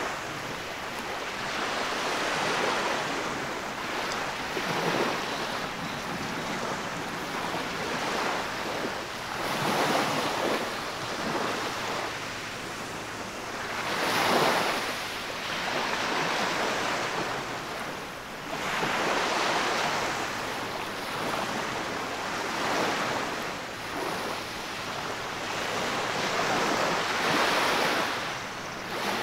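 Small surf waves breaking and washing up over a sandy beach, the rush of water and foam swelling and ebbing every few seconds. The loudest swash comes about halfway through.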